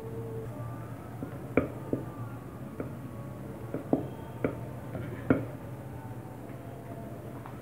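Wooden rolling pin knocking against a round wooden pastry board while rolling out dough: about six sharp clacks in the middle few seconds, over a low steady hum.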